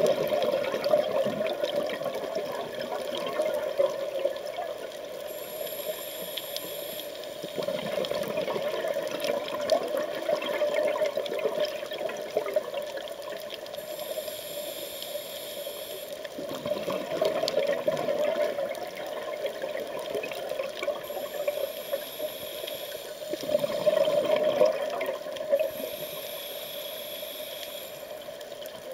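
Scuba regulator breathing heard underwater: a short hiss of an inhalation every seven or eight seconds, alternating with the bubbling rush of exhaled air, over several breath cycles.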